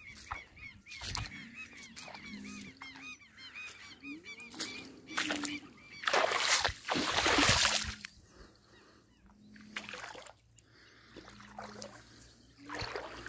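Birds calling repeatedly: short, low, goose-like honks and many high chirps. About six to eight seconds in comes a louder stretch of splashing and sloshing as someone wades through shallow floodwater.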